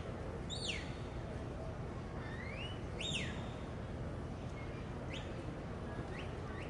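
Sheepdog handler's whistle giving herding commands to a border collie: a series of short whistles, some sliding up in pitch and some sliding down.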